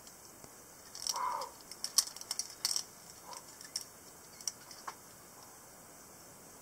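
A quick, irregular scatter of light clicks and taps close by, about a dozen over some four seconds, the loudest about two seconds in, starting with a short muffled scuff.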